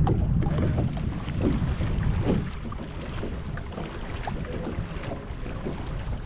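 Boat on the water: a low rumble with wind buffeting the microphone, louder for the first two and a half seconds, then easing off.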